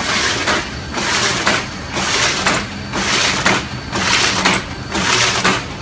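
Bobst SP1080E autoplaten die-cutting press running, a loud mechanical clatter and hiss that swells and dips in a regular cycle about once a second.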